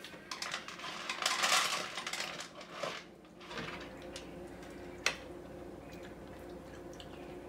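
Two cats eating dry kibble from the plastic tray of a Wopet automatic feeder: kibble rattling and clinking against the tray. The clatter is busiest for the first three seconds, then goes quieter, with one sharp click about five seconds in.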